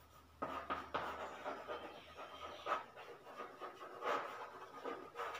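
Chalk writing on a blackboard: a string of sharp taps and short scratchy strokes as a line of words is written.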